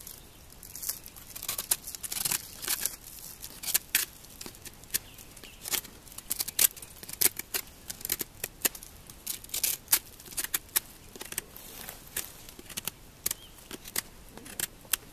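Knife whittling a thick slab of pine bark: short, irregular cutting and scraping strokes as chips are shaved off.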